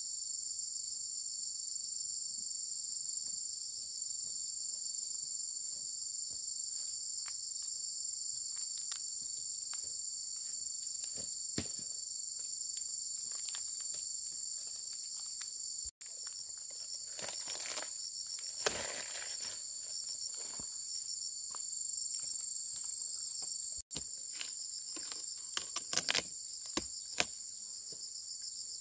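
Steady high-pitched chorus of insects, with scattered light clicks and rustles over it and a louder stretch of rustling a little past halfway through.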